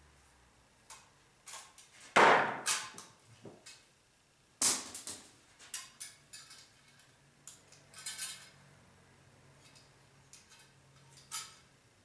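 Sharp metallic knocks and clicks of a hand tool working on a metal electrical device box, with two loud strikes about two and four and a half seconds in and lighter taps and clicks between.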